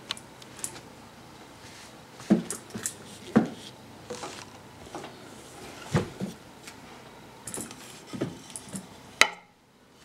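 Irregular knocks and clicks of objects being handled, a dozen or so spread unevenly. It ends in a sharp click about nine seconds in, after which the background cuts off suddenly.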